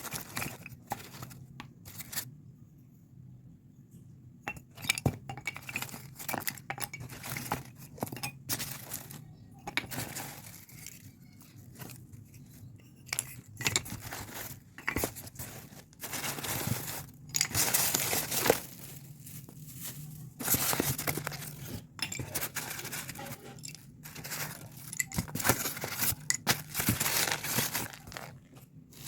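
Packaging being torn and crinkled as new clay pots are unwrapped, with sharp clinks of clay ware knocking together. The rustling comes in several longer stretches between scattered clicks.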